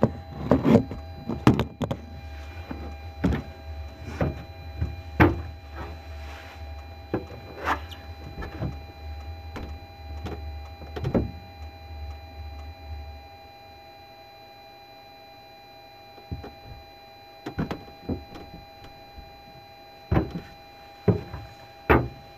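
Scattered knocks and clicks, with a low steady machine hum that cuts off about two-thirds of the way through.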